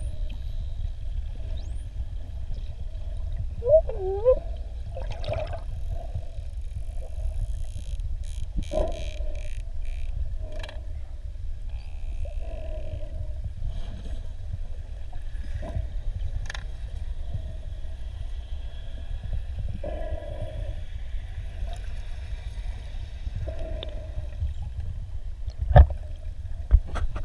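Bottlenose dolphins heard underwater over a steady low water rumble: scattered clicks and short pulsed sounds, a brief warbling whistle about four seconds in, and one sharp, loud knock near the end.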